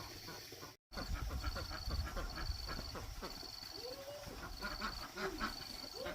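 Ducks calling, with a few short rising-and-falling calls from about four seconds in, over a clatter of clicks and rustling. A high pulsing chirp repeats throughout, and the sound drops out for an instant about a second in.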